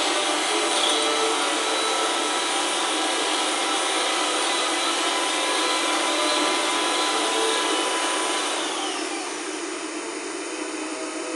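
Handheld electric mixer fitted with a prototype DISA beater (two counter-rotating, non-coaxial rotors) running steadily, its beaters working a glass bowl of white mixture. A bit over eight seconds in, the whine falls in pitch and gets quieter as the motor winds down.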